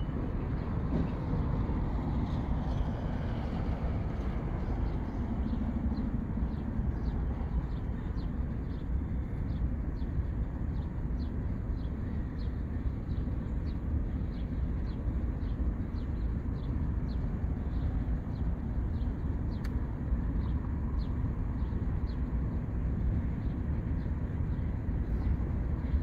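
Freight train of boxcars and refrigerator cars rolling past at steady speed: a continuous low rumble with a long run of light, regular clicks, about two a second.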